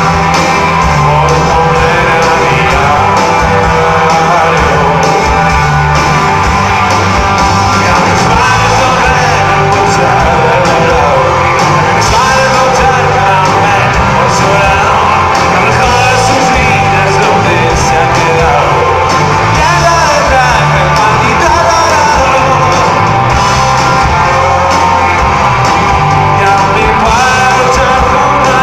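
Live rock band playing loud and steady: electric guitars, bass and drums with a male lead vocal, heard from the audience in a large hall.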